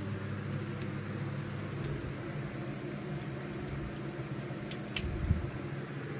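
Harbor Breeze Breezeway ceiling fan running with a steady low motor hum. A few sharp clicks and a low thump come about five seconds in.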